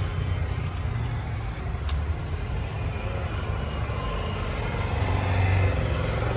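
Steady low rumble of road traffic. A few light sharp clicks from eggs being cracked with a fork over a steel bowl, the clearest about two seconds in.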